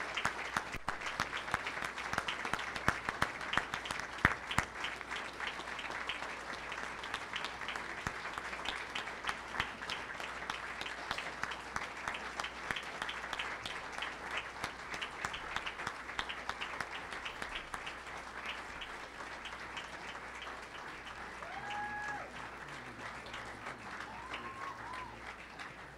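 Crowd applauding steadily, the clapping thinning out toward the end, with a couple of brief calls near the end.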